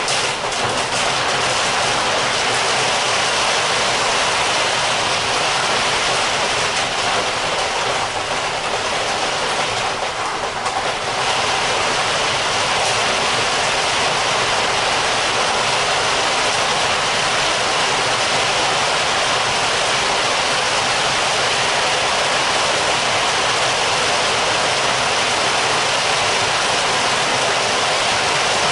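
Heavy rain heard from indoors: a dense, steady downpour that eases a little for a second or two about ten seconds in.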